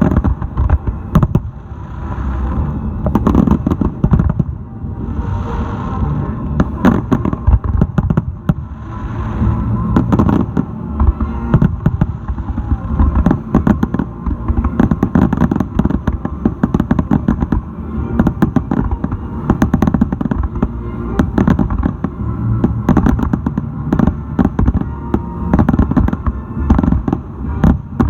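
A fireworks finale barrage: aerial shells bursting in rapid, overlapping succession, with a dense run of booms and crackles that never lets up.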